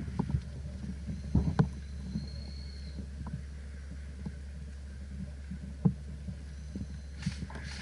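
Steady low rumble of wind and handling on a body-worn action camera, with scattered knocks and rustles, the sharpest about a second and a half in and again near six seconds.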